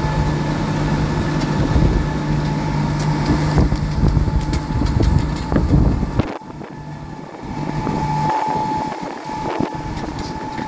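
Heavy engine running steadily, with wind buffeting the microphone. About six seconds in the sound changes abruptly: the low rumble drops away and comes and goes, while a steady higher tone carries on.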